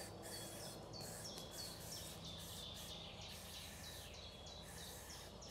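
Faint outdoor ambience with a bird repeatedly giving short, high chirps over a low, steady background hum.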